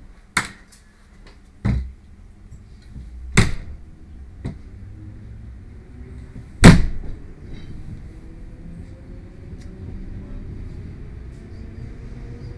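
Doors of an ÖBB class 4020 S-Bahn electric train banging shut: several sharp bangs, the loudest about six and a half seconds in. The train then starts to pull away, a whine from its drive rising slowly in pitch as it gathers speed.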